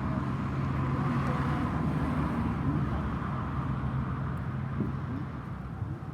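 Steady background rumble and hiss with a low hum underneath, and no distinct strikes or events.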